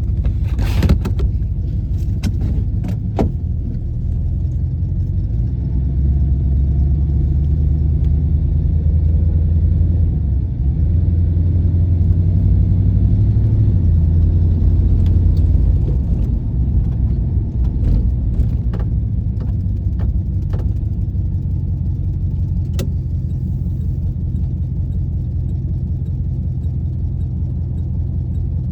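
1996 Impala SS's 5.7-litre LT1 V8 engine and exhaust droning steadily while the car is driven, growing heavier from about six to sixteen seconds in as it pulls harder, then settling. The owner suspects an exhaust leak. A few sharp clicks come in the first few seconds.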